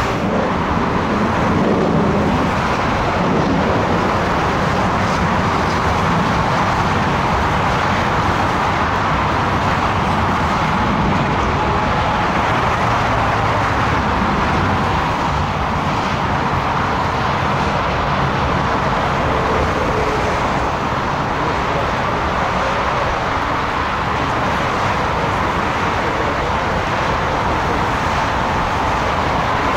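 Airliner jet engines heard across an airfield: a steady rumble and hiss with a faint whine on top, without any clear build-up or peak.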